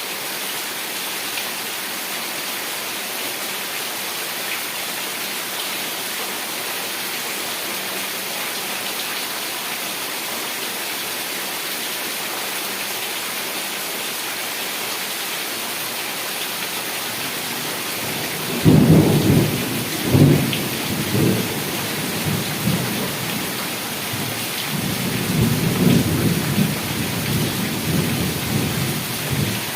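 Heavy rain falling in a steady hiss. Thunder rumbles in twice, more than halfway through: a sudden loud, rolling peal, then a second, longer rumble near the end.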